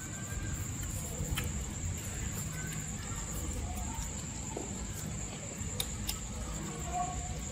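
Crickets chirring in one steady high note, with a few faint clicks.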